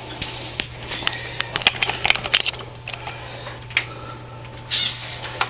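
A run of light clicks and knocks, thickest in the first half, over a steady low hum.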